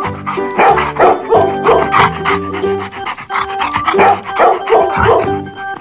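A dog barking in two runs of short barks, the second run about four seconds in, over background music.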